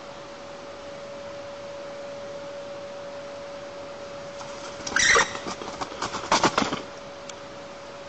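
A black woodpecker shrieks about five seconds in, one loud call falling in pitch, followed by a quick run of rough, noisy strokes for about a second and a half as it flies in to the nest. A steady electrical hum sits underneath.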